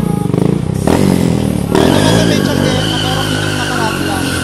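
Stunt motorcycle's engine revving up and down in repeated swells as the rider works through tricks.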